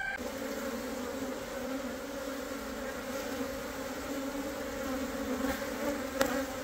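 A clustered swarm of Korean native honeybees (Asian honeybee, Apis cerana) humming, a steady low buzz from thousands of bees; a single brief click about six seconds in.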